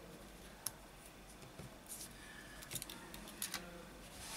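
Small sharp clicks and light handling noise from a smartphone's plastic inner frame being pressed and snapped into place: one click about half a second in, then a quick cluster of clicks around three to three and a half seconds.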